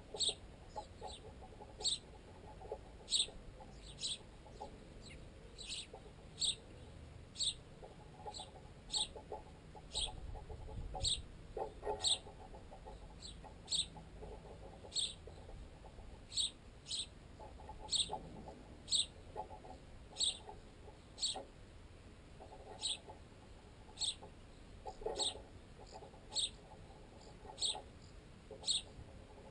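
Sparrows chirping, one short high chirp about every second, over stretches of rapid rattling pecks at bread that are carried unnaturally loud through the tent guy line and pole the camera is mounted on.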